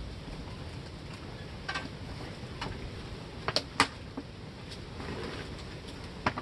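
A few sharp clicks and knocks of metal hardware as a tractor snow cab's frame is handled and fitted, the loudest two close together a little past halfway, over a steady low rumble.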